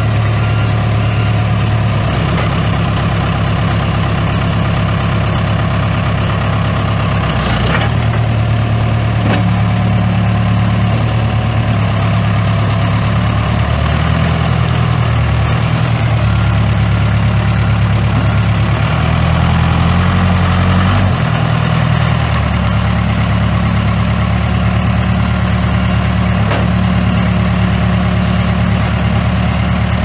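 Case 580 Super K backhoe's four-cylinder diesel engine running steadily at idle, its note shifting several times around the middle.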